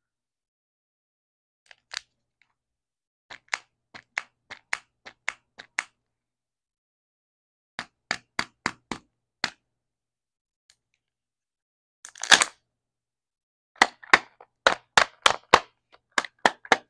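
Plastic shell of a Kinder Joy egg clicking and tapping under the fingers in short runs of sharp clicks, with a louder crackling burst about twelve seconds in and a quick cluster of clicks near the end as the foil seal is peeled off.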